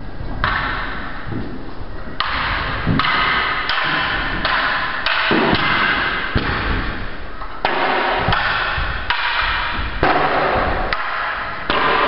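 Knocks and thuds from two people sparring with wooden staffs, sticks striking and bare feet landing on a wooden floor, coming irregularly about once a second over a loud steady hiss.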